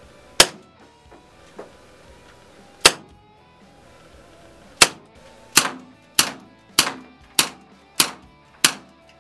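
WinGun 708 snub-nose CO2 airsoft revolver firing nine shots: three single shots a couple of seconds apart, then six quick shots about 0.6 s apart, each a sharp gas crack.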